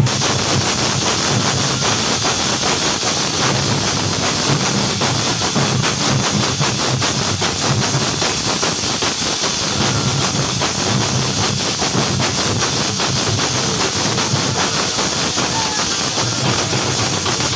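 Many metal hand cymbals clashing together in a dense, continuous, hissing wash of metallic noise, as played by a festival percussion troupe.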